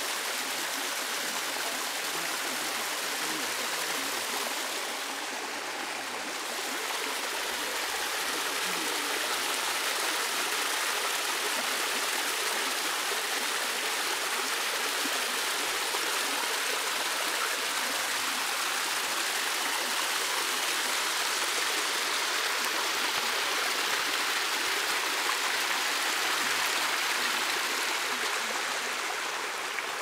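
Waterfall: a steady rush of falling water, briefly a little quieter and duller about five seconds in.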